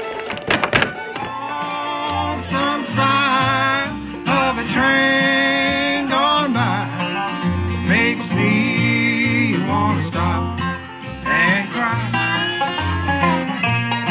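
Country string-band music with plucked strings over a stepping bass line. A few sharp knocks sound in the first second.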